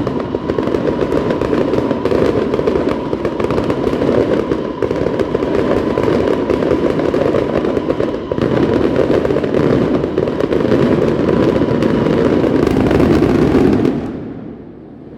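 Fireworks going off in a dense, continuous crackle of rapid pops, with a thin steady whistle underneath. The crackle dies away about a second before the end.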